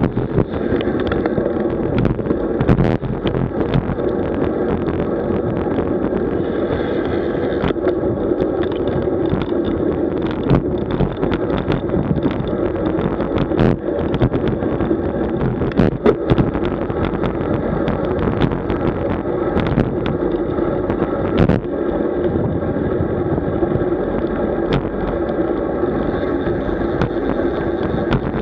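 Road bicycle riding at speed: a steady rumble of tyres on the road with wind buffeting the microphone, broken by frequent sharp knocks and rattles.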